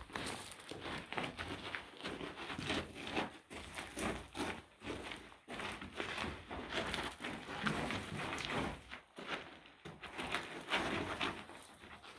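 Several people's footsteps on a gravelly mine floor: an irregular run of short scuffs and crunches, with clothing and gear rustling.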